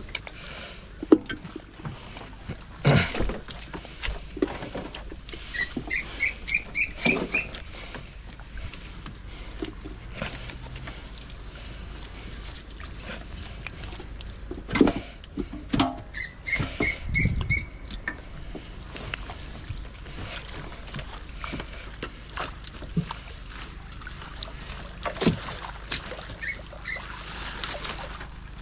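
Irregular knocks and clatter of handling work, with two quick runs of about six high, squeaky chirps each, roughly a quarter and two-thirds of the way through.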